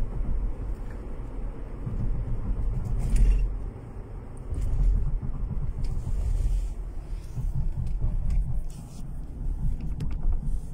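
Low, uneven rumble of a car driving along a road, heard from inside the cabin, with a few faint clicks.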